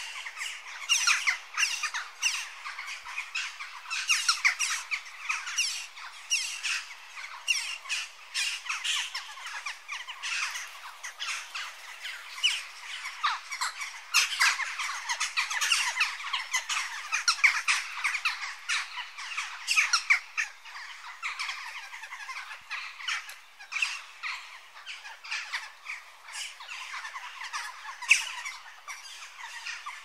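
Jackdaws calling: a busy, unbroken chatter of short, sharp calls that overlap one another.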